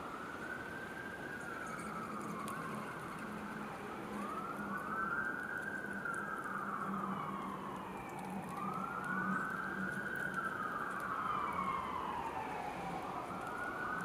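Emergency vehicle siren wailing, its pitch rising and falling in long, slow sweeps about every four to five seconds, over a low steady hum.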